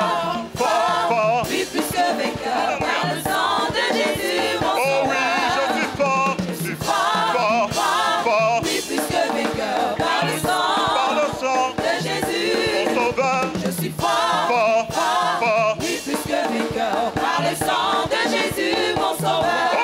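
Large choir singing a French gospel song with a live band, drums keeping a steady beat under the voices.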